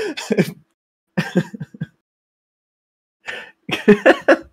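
Three short bursts of a person's voice over a voice-chat call, unclear words or throat-clearing, each cut off to dead silence between them.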